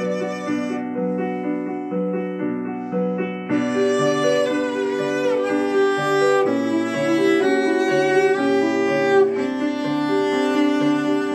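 Background instrumental music: a violin-like melody over piano and a stepping bass line, growing fuller about three and a half seconds in.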